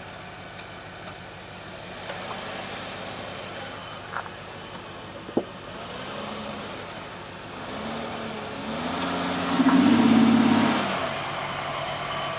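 2007 Honda Pilot's 3.5-litre V6 engine climbing a rocky ledge under load, revving up and down in short swells, loudest about ten seconds in. A single sharp click comes about five seconds in.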